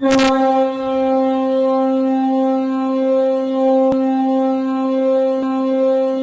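Ice hockey arena goal horn blowing one long, loud, steady low blast at a single pitch, opening with a short burst of noise. A few faint knocks sound in the second half.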